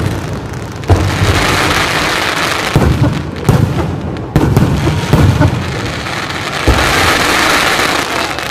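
Aerial fireworks display: a series of sharp bangs from bursting shells, about seven, over a steady crackling hiss of burning stars.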